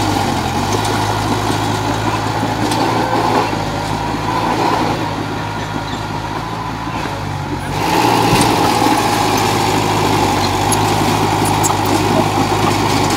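Komatsu D31 crawler dozer's diesel engine running steadily under work. It eases off for a few seconds in the middle, then comes back louder just before eight seconds in.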